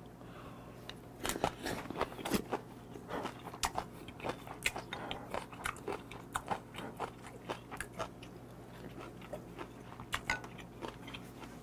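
A person chewing soy-sauce-marinated raw swimming crab (ganjang gejang), with an irregular run of sharp wet clicks and crunches, several a second.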